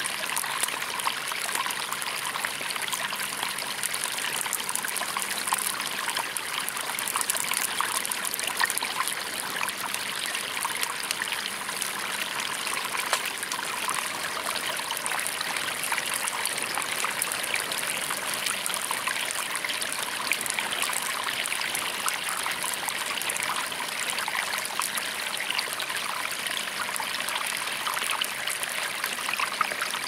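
A river stream flowing and trickling steadily, with a campfire crackling in small, sharp pops and ticks scattered through it.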